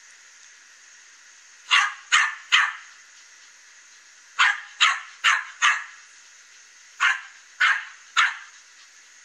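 A small dog barking in three short bursts of sharp, high barks: three, then four, then three.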